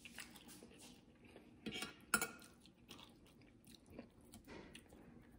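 Soft chewing and mouth sounds of a person eating, with a few scattered light clicks; one, near the end, is a fork touching the plate.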